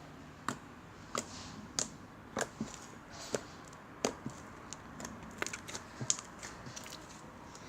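Homemade glue slime being poked and worked by hand, giving a scattered series of small sharp clicks and pops.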